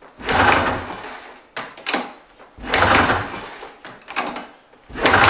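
Recoil pull-starter on a Polaris snowmobile's 433 two-stroke engine being yanked four times. Each pull is a rasping whir of rope and a turning engine that fades out. The engine turns over without firing while oil is being cleared from it.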